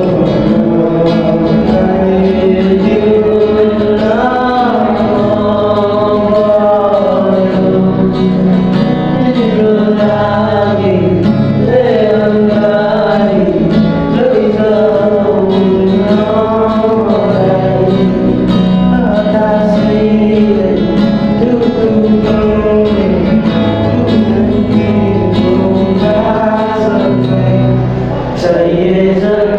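Background music: a song with a male singing voice over plucked guitar and a steady backing.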